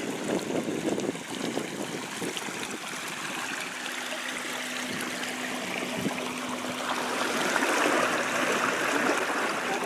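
Water rushing and splashing around the plastic barrel hulls and the electric trolling motor's propeller wash as the boat moves along. It grows louder later on as the boat passes close. A faint steady hum from the trolling motor comes in about four seconds in.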